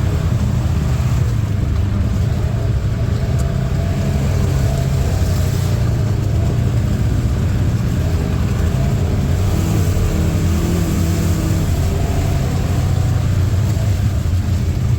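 Four-wheeler (ATV) engine running while being ridden, a steady low drone.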